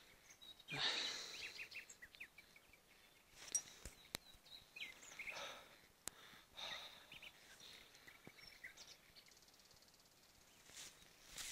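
Faint outdoor ambience: scattered short chirping calls over a low hiss, with a few brief rushes of noise.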